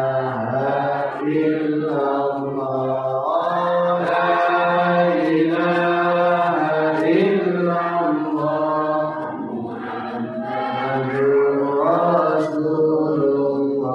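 Islamic dhikr chanted in Arabic: a voice intoning a devotional phrase in long, held melodic notes that rise and fall slowly in pitch, without a break.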